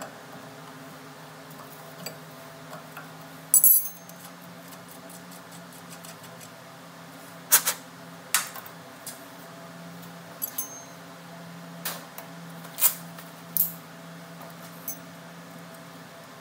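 A combination wrench and metal fittings clinking while the air line is disconnected from a Mack truck's front air brake chamber: several sharp, separate metallic clicks and knocks, the loudest about three and a half seconds in. A steady low hum runs underneath.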